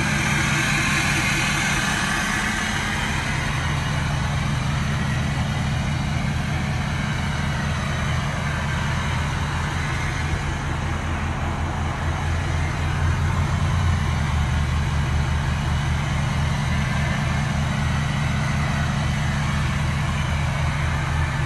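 A vehicle engine idling steadily, an even low hum with no revving.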